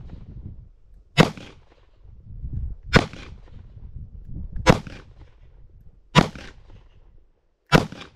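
Kimber K6S snub-nose .357 Magnum revolver, double-action only, firing target loads: five single shots about a second and a half apart, the last rounds of a six-shot cylinder.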